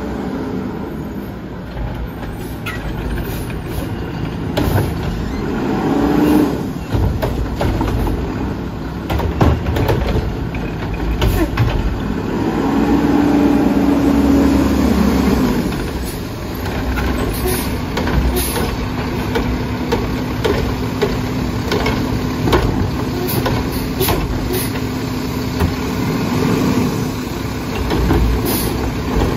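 Mack LEU garbage truck with a McNeilus Atlantic body running, with a steady hydraulic hum from about halfway on and scattered metallic clanks as the Curotto-Can arm grips, lifts and tips a plastic wheeled cart.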